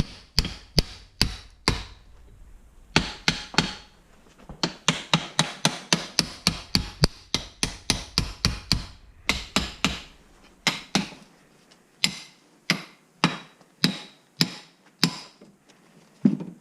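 Small hammer striking the rust-seized thumb screw (adjusting nut) of an aluminium Ridgid pipe wrench, working it loose after a WD-40 soak. Sharp metallic blows come in quick runs of about three a second, with short pauses between runs and slower, spaced blows near the end.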